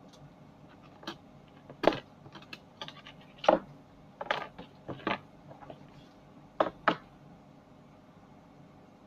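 A run of irregular sharp clicks and taps from small hard objects, about a dozen of them over some six seconds, with the loudest two about a second and a half apart.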